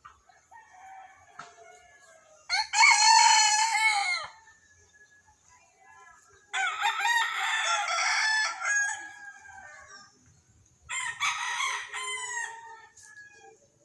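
White bantam rooster crowing three times, each crow lasting about two seconds, the first the loudest.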